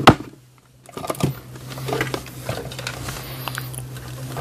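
A sharp click, then soft handling clicks and rustles on a workbench over a steady low hum.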